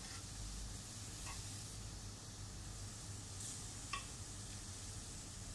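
Zucchini slices sizzling quietly on a hot ridged grill pan, with two light clicks of a fork against the pan, about a second in and near the end.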